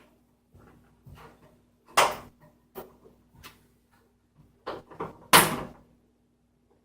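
Hard parts knocking and clattering as they are handled: a run of small clicks and knocks, with two much louder sharp knocks, one about two seconds in and another about three seconds later.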